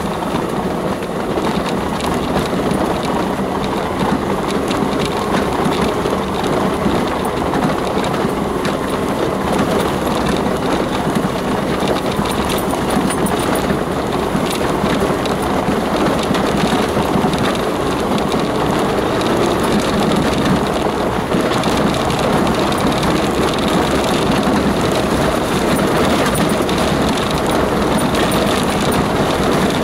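Inside the cab of a 4x4 driving slowly over a rutted green lane: the engine runs steadily under a constant rumble and rattle from the tyres and body on the rough track.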